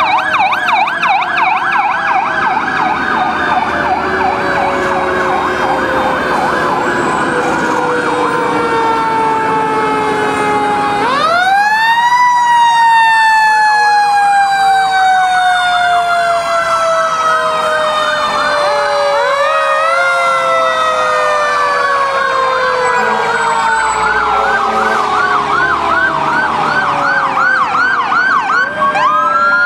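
Several fire trucks passing with sirens sounding together. Electronic sirens yelp fast throughout. About eleven seconds in, a mechanical Federal Q2B-type siren winds up sharply and coasts slowly down in pitch over many seconds. It winds up again about twenty seconds in.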